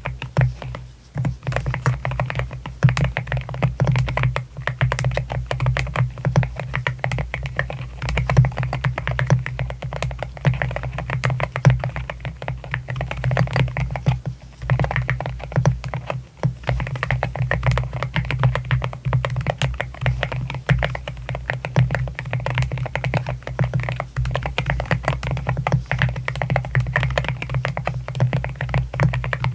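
Continuous typing on an AKKO MU01 wooden-case mechanical keyboard with Akko Rosewood linear switches: a dense, steady patter of keystrokes with a couple of brief pauses, over soft background music.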